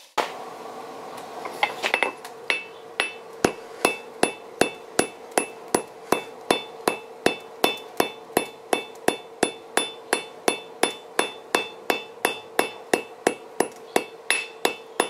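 Blacksmith's hand hammer striking red-hot steel on an anvil: a few light taps, then a steady rhythm of blows about two to three a second starting about two seconds in, with the anvil ringing on a steady tone between them.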